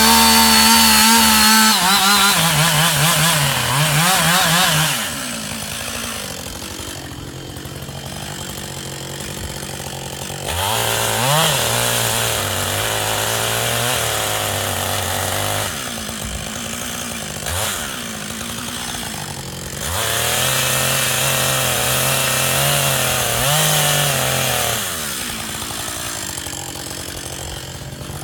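Husqvarna 560XPG two-stroke chainsaw, revved hard three times for about five seconds each and dropping back to idle in between; in the first burst the engine note wavers under cutting load.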